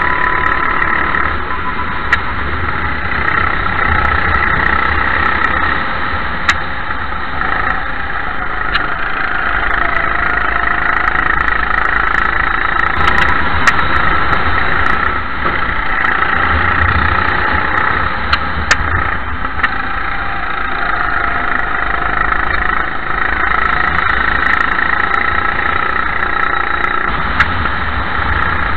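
Racing kart engine heard from an onboard camera, running hard at race speed, its pitch rising and falling as the driver accelerates and lifts through corners. Now and then there is a sharp click or knock.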